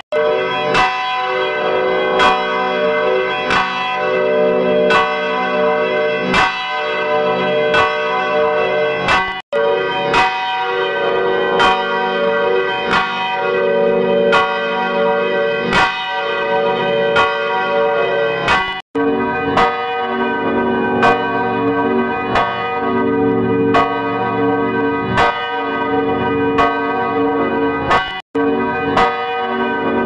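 A church bell struck over and over in a steady rhythm, its tones ringing on between strokes, in a digitally effects-processed copy. The sound cuts out for an instant three times, where one altered version hands over to the next.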